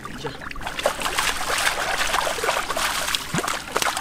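Splashing and sloshing of shallow muddy water as hands dig and scoop wet mud, with fish thrashing in the puddle. It is a dense wash of wet slaps and spatters, building about half a second in.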